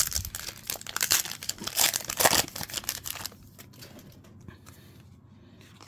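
A hockey trading-card pack's wrapper being torn open and crinkled, a dense crackling for the first three seconds or so, then only faint rustles and clicks as the cards are handled.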